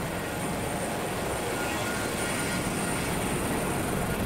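Air ambulance helicopter's turbine engines and rotor running steadily, heard inside the cabin, with a thin high whine over an even rushing noise.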